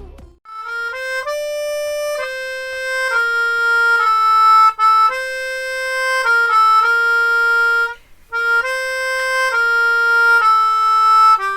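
Background music: a solo harmonica playing a slow melody of held notes, with a short break about eight seconds in.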